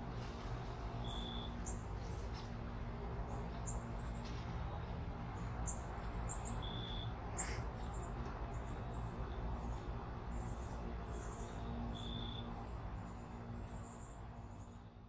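Backyard evening ambience: many short, high-pitched chirps repeating irregularly, with a brief clear whistle-like tone three times, over a low steady rumble. It fades out near the end.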